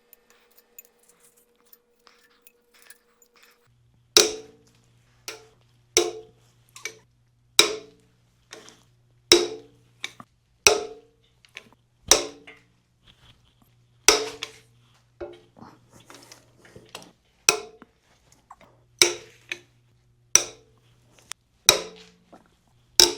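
Sharp, ringing knocks on metal, repeated about once every second or so, as work goes on at a cast-iron inline-six engine being torn down; faint light ticks come before the knocks start, about four seconds in.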